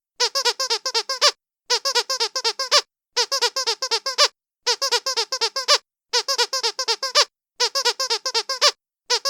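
Trixie squeaky duck dog toy giving high-pitched quacking squeaks in quick runs of about eight, each run lasting about a second with a short pause before the next, repeating evenly.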